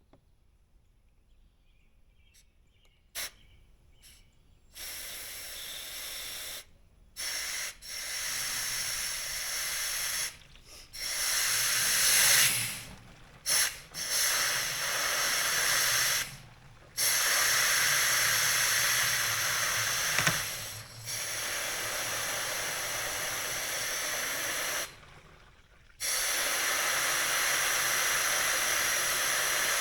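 Compressed air hissing from an air-compressor line blown into a sealed motorcycle fuel tank, pressurizing it to push the stale gasoline out through a siphon hose. Near quiet at first with a click about three seconds in, then hissing in bursts that stop and start several times before running steadily over the last few seconds.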